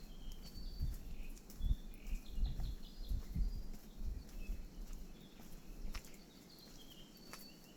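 Birds chirping with short high calls scattered throughout, over irregular low thumps of handling or wind on the microphone that die away about halfway through.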